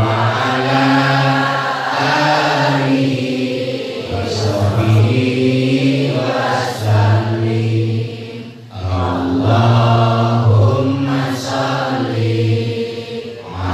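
Men's voices chanting an Islamic devotional dhikr together over a microphone, in long drawn-out melodic phrases of about two seconds each, with a brief pause about eight and a half seconds in.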